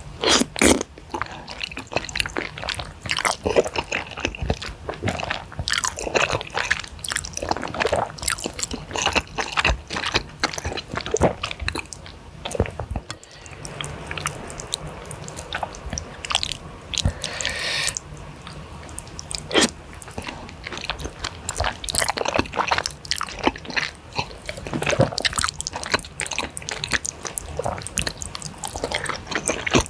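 Close-miked eating of saucy flat rice noodles and cassava noodles in a spicy broth: wet slurping and sticky chewing with many short mouth clicks and smacks.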